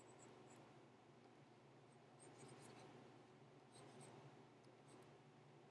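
Near silence: faint, brief scratching of a stylus pen drawing strokes on a graphics tablet, twice in a little cluster, over a low steady hum.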